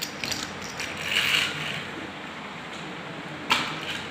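Light handling noises: a few small clicks near the start, a short scrape about a second in, and one sharp knock about three and a half seconds in.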